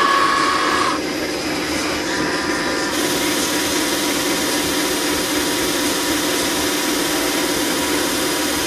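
Electric bench buffer motor running steadily, driving a milling cutter through a timing belt. A thin whine cuts off about a second in, and a brighter hiss joins about three seconds in.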